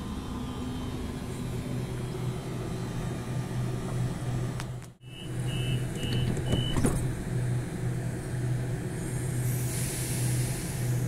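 Double-deck electric suburban train standing at a platform with a steady pulsing hum. About five seconds in the sound drops out for a moment, then four short high beeps sound, and a hiss rises near the end.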